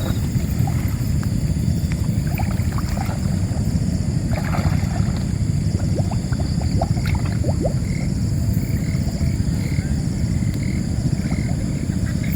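Steady low rumble of wind buffeting the microphone, over a constant high insect drone. A run of short, evenly spaced chirps about twice a second starts about seven seconds in.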